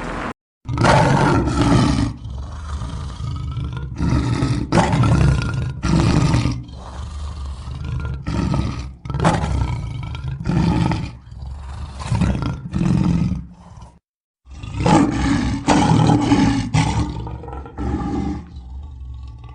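Lion roaring over and over: a series of about a dozen loud roars, each under a second, broken twice by sudden cuts to silence.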